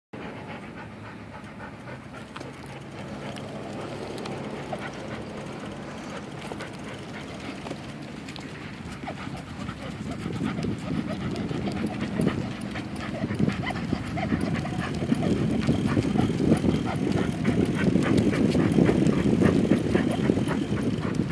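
Siberian husky panting, then, from about ten seconds in, a louder rumbling noise from riding a bicycle with the dog running alongside, with quick ticks throughout.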